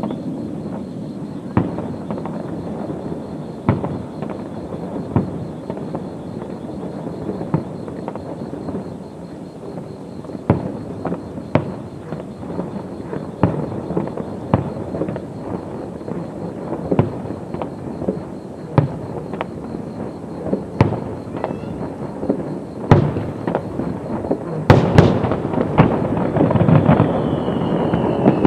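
Fireworks display: a steady crackle from burning set-piece fireworks, with sharp bangs every second or so. Near the end the bangs grow louder and come faster as large aerial shells start bursting.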